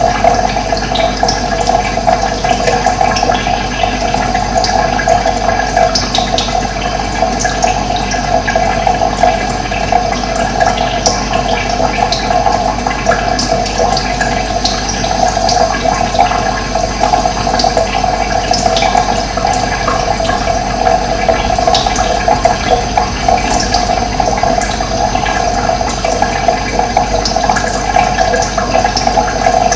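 Running water, a steady rushing, with occasional short high bird chirps over it.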